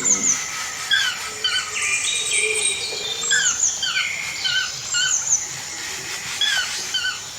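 Rainforest ambience: many birds giving short, repeated chirping calls over a steady high insect drone.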